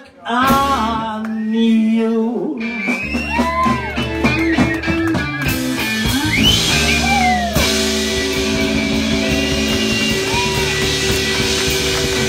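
Live rock band with electric guitar, bass and drums playing loudly; a voice sings briefly at the start, then from about three seconds in the guitar plays bending notes, and from about eight seconds it holds long sustained notes over a wash of cymbals.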